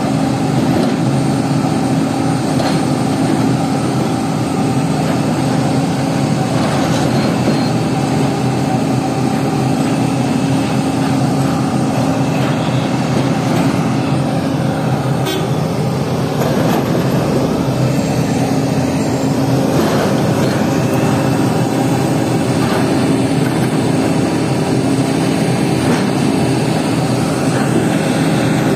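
Heavy machine's engine running steadily, a continuous loud drone with mechanical noise.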